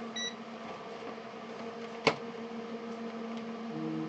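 Steady electrical hum from workbench equipment. A short high electronic beep sounds just after the start, a single sharp click about two seconds in, and a brief low buzz near the end.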